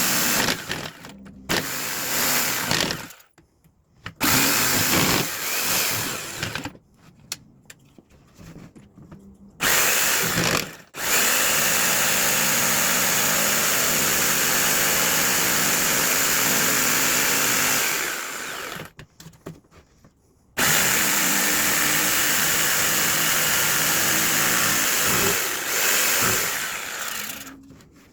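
Power tools working a wooden fence picket: a drill boring holes in several short bursts, then a jigsaw cutting out a window opening in two long steady runs, each stopping abruptly.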